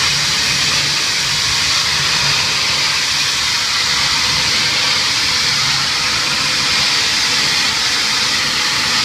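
Pressure-washer spray blasting grease off a stainless-steel panel: a loud, steady hiss of water jetting and spattering on the metal, with a faint low hum underneath.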